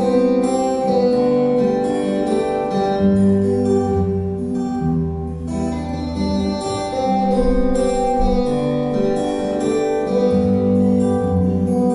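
Two acoustic guitars playing an instrumental duet, with plucked melody over chords and bass notes.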